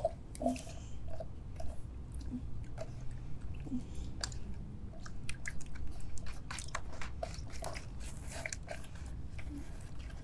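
Wet squelching and clicking from hands squeezing and stirring glue mixed with iron filings in borax solution in a plastic tub, as it sets into slime. The clicks come thickest in the middle.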